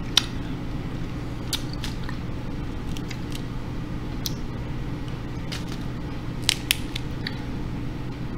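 Boiled snow crab leg shells cracking and snapping as they are picked apart by hand, about ten sharp, separate clicks, the loudest two close together about two-thirds of the way through, over a steady low hum.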